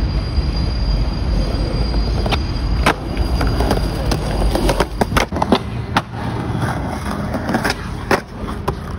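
Skateboard wheels rolling on concrete, with a string of sharp clacks from the board popping and landing, most of them between about two and six seconds in. Underneath is a low rumble that eases off after about five seconds.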